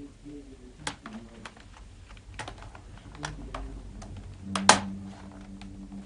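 Irregular clicks and taps from handling a laptop, typical of keys or plastic parts, with a loud double click about four and a half seconds in.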